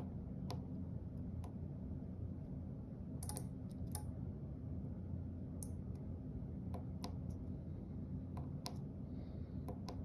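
Small blue electromechanical relay module clicking as it switches, about a dozen sharp, irregularly spaced clicks over a low steady hum.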